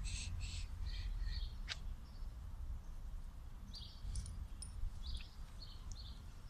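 Songbirds chirping in quick clusters of short high notes, one burst at the start and another about four seconds in, over a steady low rumble. A single sharp click comes a little before two seconds in.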